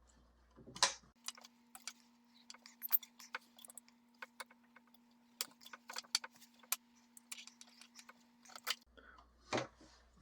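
Wire strippers clicking and snipping as the ends of thin hookup wires are stripped: a string of small, irregular clicks, with a faint steady hum underneath.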